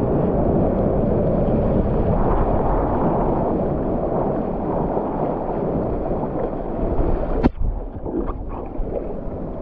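Water rushing and splashing along a stand-up paddleboard as it rides a small wave, with wind on the microphone. A single sharp knock comes about three-quarters of the way through, after which the rush is quieter.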